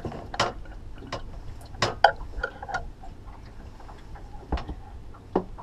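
A handful of sharp knocks and clicks at irregular intervals, the loudest about two seconds in: gear and fish being handled on a fishing boat's deck.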